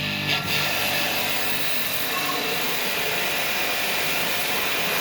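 Electric pressure washer running and spraying water onto a window air conditioner: a steady motor drone under the hiss of the water jet.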